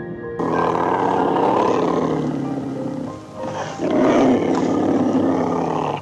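An animal giving two long, rough calls, the first about three seconds long and the second about two, over background music.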